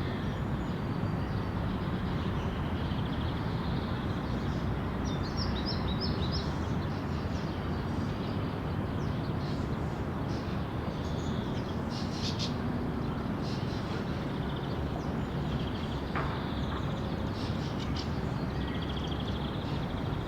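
City park ambience: a steady rumble of road traffic, with small birds chirping and trilling over it at scattered moments.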